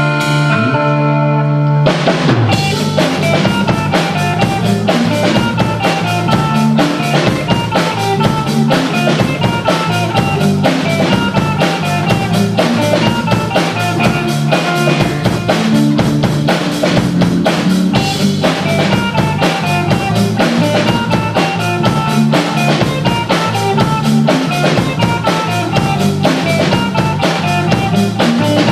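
Rock band music: held guitar tones, then a full drum kit with bass drum comes in about two seconds in and keeps a steady beat under the guitars.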